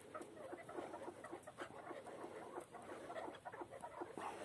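Chukar partridges clucking softly in quick, irregular short notes.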